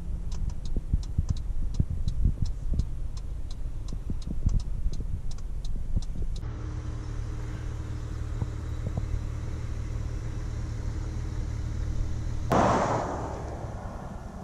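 Low car rumble with a regular ticking, about three to four ticks a second, for the first six seconds. Then a steady low hum, broken near the end by a sudden loud rush of noise that fades over about two seconds.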